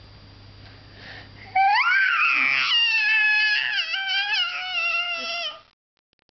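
A baby's long, high-pitched squeal with a spoon in his mouth, starting about a second and a half in and lasting about four seconds, wavering up and down in pitch. It cuts off suddenly near the end.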